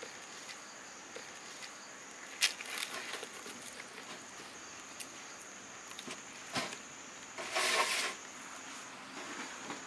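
Fresh banana leaves crackling and rustling as they are folded around a fish and tied with banana-fibre string: a few sharp crackles, then a longer rustle near the end. A steady high insect drone runs underneath.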